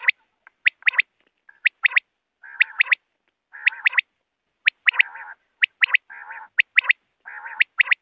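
Common quail calling its sharp three-note 'pwit-pwit-pwit' song over and over, about once a second. Lower rasping notes sound in the gaps between the calls.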